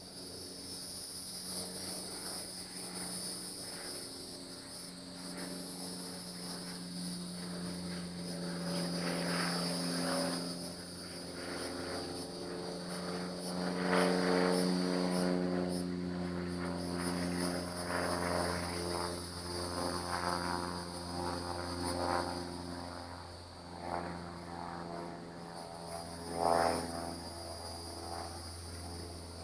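A distant engine droning, its pitch wavering slowly, growing louder towards the middle and then easing off. A steady high-pitched insect buzz runs throughout, and there is a brief knock near the end.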